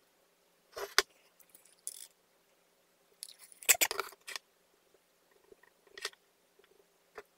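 A few short clicks and knocks as a glass bottle is stood upright and craft supplies are handled on a tiled work surface, with the loudest clatter just past the middle.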